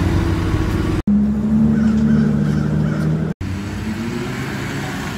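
Car engine and exhaust note as a car drives past, its pitch sliding up and down, with a strong steady low drone for a couple of seconds in the middle. The sound drops out abruptly for an instant twice, about a second in and again past the middle.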